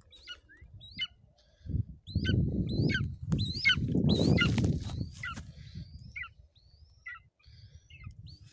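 A bird of prey calling over and over in short, high yelps that rise and fall in pitch, about a dozen in all. A loud low rushing noise comes in from about two to five seconds in, as the eagle sweeps low past.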